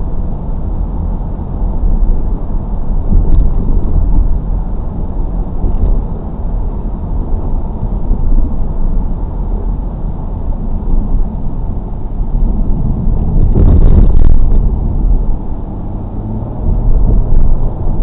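Car driving, heard through a dash cam: a steady low road and engine rumble, with a louder rush about three-quarters of the way through.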